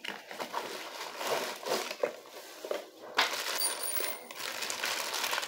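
A cardboard box being opened and a plastic mailer bag pulled out and handled: irregular crinkling and rustling of plastic and cardboard, with small clicks and a sharp knock about three seconds in.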